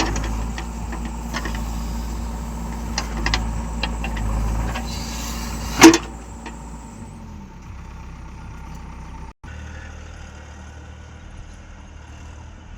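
Vehicle engine running steadily, with several knocks and a loud knock about six seconds in. About seven seconds in the engine sound drops away, leaving a quieter low hum.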